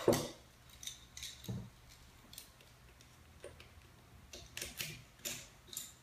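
Keys jangling and a few small metallic clicks and rattles as a key is fitted into the OnGuard Bulldog DT U-lock's cylinder and turned to unlock it. The clicks are scattered, with a quick run of them near the end.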